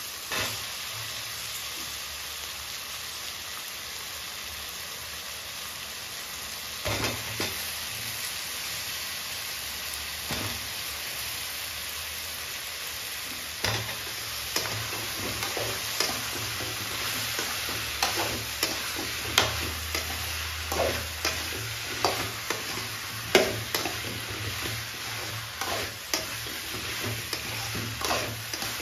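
Brinjals frying with onion-tomato masala in sesame oil in an aluminium kadai, a steady sizzle. From about halfway, a metal slotted spoon stirs the pan, scraping and knocking against the aluminium again and again.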